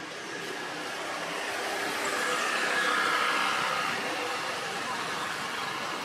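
A vehicle passing by: a steady rushing noise that grows to its loudest about halfway through, then fades.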